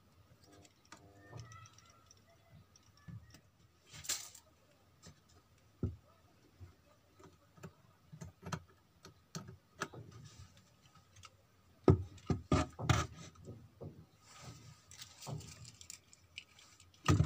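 Scattered small clicks and taps from handling a soldering iron, wires and parts inside an amplifier chassis, with a quick run of louder knocks about twelve seconds in.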